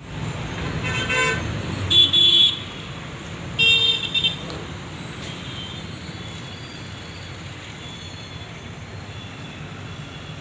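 Road traffic passing with a steady rumble, and vehicle horns honking in three short blasts in the first half, the second and third the loudest.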